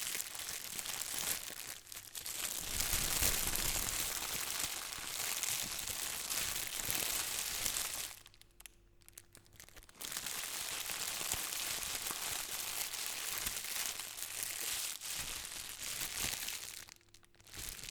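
Plastic bag being crumpled and crinkled by hand: dense crackling in two long stretches, with a pause of about two seconds in the middle and another short break near the end.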